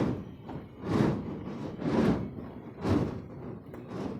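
Dull thuds repeating steadily about once a second, four of them in a row.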